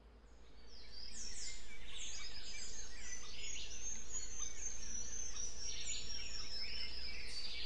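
Many birds singing and calling at once: dense overlapping chirps and quick falling whistles, fading in over the first second.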